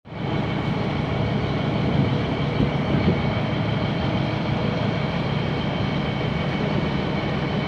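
Fishing boat's engine running steadily under way, a constant low drone with the rush of water and wind around the hull.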